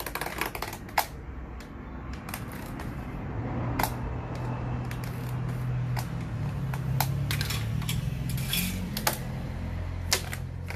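Utility knife scoring a white PVC ceiling panel along a measuring-tape edge, then the panel snapped apart along the score: a scatter of sharp clicks and ticks with a short scrape. A low steady hum sits underneath from about three seconds in.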